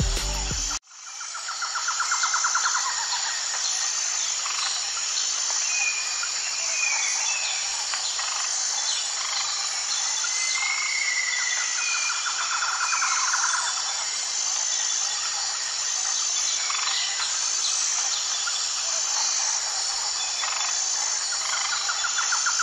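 Tropical countryside ambience: a steady high insect drone with a faster pulsing insect call above it, scattered bird chirps, and a rapid pulsed trill that comes about every ten seconds. A music track cuts off within the first second.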